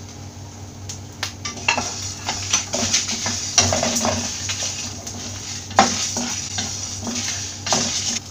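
Whole spices (peppercorns, coriander seeds, dried red chillies, cinnamon and bay leaves) being dry-roasted in a hot frying pan: they are tipped in at the start, then rattle and scrape as a wooden spatula stirs them around the pan.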